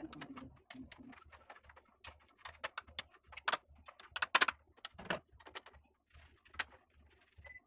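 Irregular metallic clicks and taps of an aluminium flan mould in a clamp holder, knocking against the gas burner grate as it is swirled while sugar melts into caramel. A low coo-like sound is heard around the start.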